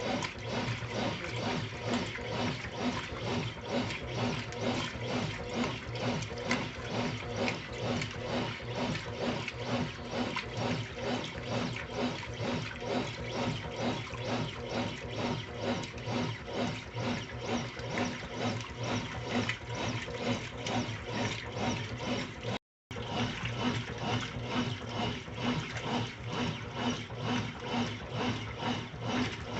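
Brastemp Intelligent 7 kg top-loading washing machine running a wash, its motor humming steadily under rhythmic sloshing of water, about two swells a second, as the load is agitated. The sound cuts out for a moment about 23 seconds in.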